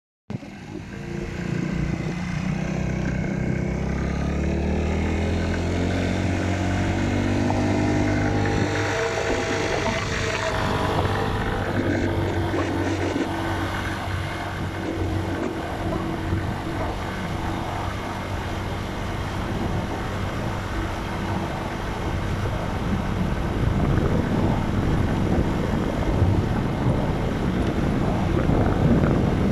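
Motocross bike engine under way, its pitch climbing for the first several seconds as the bike accelerates, then running steadily. Wind rushing over the microphone grows stronger toward the end.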